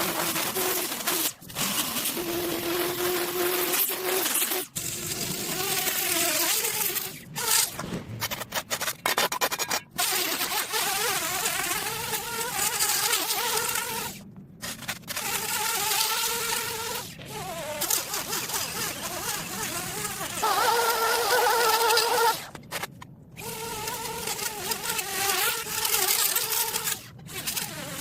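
A small motorised lawn tool's engine whining, its pitch wavering up and down. It is broken off abruptly several times by cuts, and is loudest a little past two-thirds of the way through.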